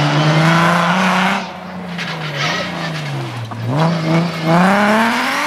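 Rally car engine running hard on a gravel stage. The note holds high, drops as the driver comes off the throttle about one and a half seconds in, sinks lower for a moment, then climbs steeply as the car accelerates away, with gravel and tyre noise over it.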